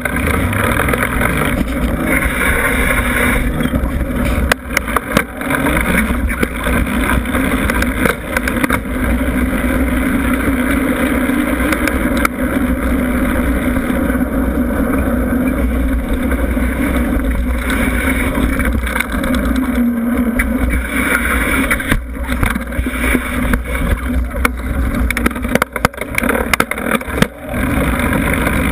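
Steady rumble and wind buffeting from a Giant Trance full-suspension mountain bike rolling over pavement, heard from low on the frame. Scattered knocks and clicks come through, most of them past the two-thirds mark.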